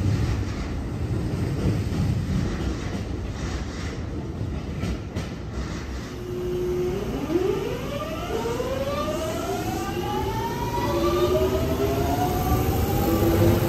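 Electric commuter train's inverter motors whining as it pulls away: a steady tone about halfway through, then a stack of tones rising steadily in pitch as it gathers speed, over a low running rumble.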